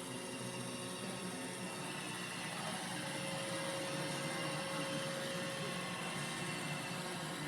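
iRobot Roomba j7+ robot vacuum running, a steady whir of its suction motor and brushes.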